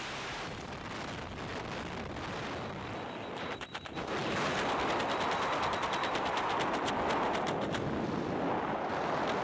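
Freefall wind rushing over the microphone, with rapid crackling pops as the airflow buffets it; it grows louder about four seconds in.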